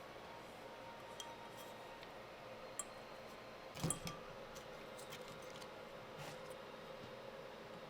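Books and small items being handled and set on a shelf: scattered faint clicks and taps, with one louder knock a little under four seconds in, over a low steady room hum.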